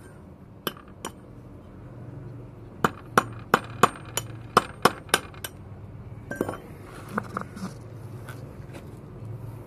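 Metal tools striking and clinking against metal brake servo parts: two light clicks, then a quick run of about nine sharp ringing strikes, about three a second, followed by a few lighter clinks.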